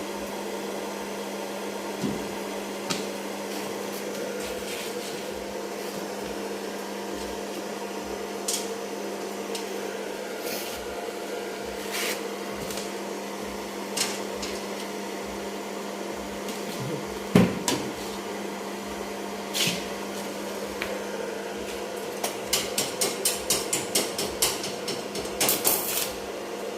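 Hammer knocks on a car's metal body panel, scattered at first, then a quick run of about four taps a second near the end, over a steady hum.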